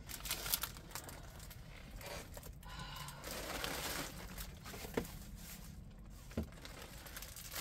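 Plastic packaging crinkling and rustling as a diamond painting kit is handled, with a couple of light clicks.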